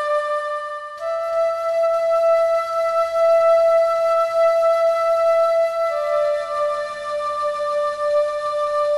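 Background music: a slow melody of long held notes, the pitch stepping up about a second in and down again near six seconds.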